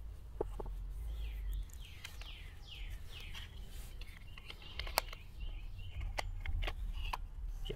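Scattered light clicks and knocks of a battery mini chainsaw's plastic cover and chain parts being handled and fitted, the sharpest about five seconds in. Behind them a bird calls, a run of quick falling chirps about two seconds in, over a steady low rumble.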